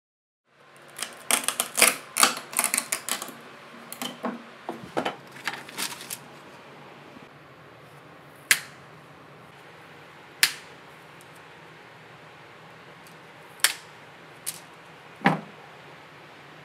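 Wooden craft sticks being snipped with cutting pliers: a quick run of sharp snaps and clicks for about five seconds, then single snaps every couple of seconds.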